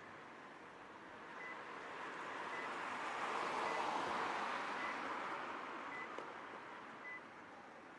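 A vehicle passing close by, its noise swelling and then fading over several seconds, with a faint short high beep repeating about once a second, like a reversing alarm.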